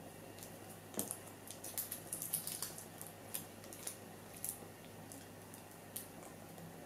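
Light clicks and crinkles of thin metal sheet being pulled and unrolled with pliers from a torn-open cylindrical battery: a quick run of ticks about one to three seconds in, then a few scattered ones.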